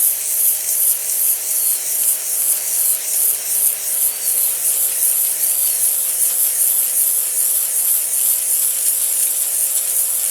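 High-pressure washer spraying water, a steady hiss that pulses about three times a second over a faint steady motor hum.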